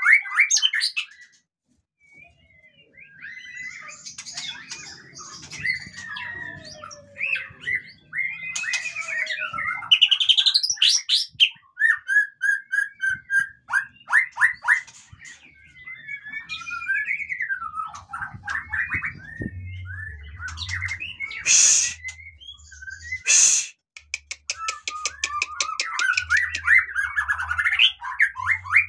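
White-rumped shama singing a long, varied song of whistles, rising and falling glides and trills, with brief pauses. About two-thirds of the way through come two short, loud harsh bursts, followed by a rapid rattle.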